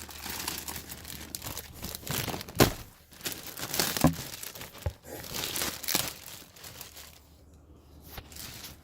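Packaging crinkling and rustling as the touch screen is handled out of its wrapping, with a few sharp knocks about two and a half, four and six seconds in.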